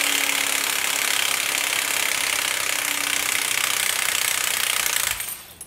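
Cordless DeWalt impact wrench hammering steadily as it drives a puller's forcing screw against the crankshaft nose to draw the harmonic balancer off an LS V8. It stops suddenly about five seconds in.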